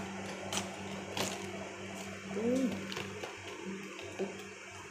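Crisp cabbage leaves being peeled and snapped apart by hand, giving a few sharp crackles. A short, low, arching call sounds about two and a half seconds in, over a steady low hum.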